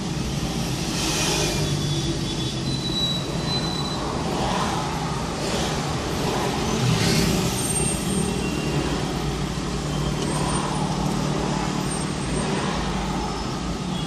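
Road traffic in a slow jam: a steady low engine hum, with vehicles passing close by and the noise swelling about a second in and again around seven seconds in.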